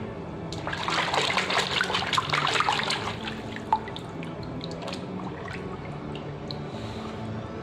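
Water splashing and trickling, strongest for the first few seconds, then scattered drips, over quiet background music.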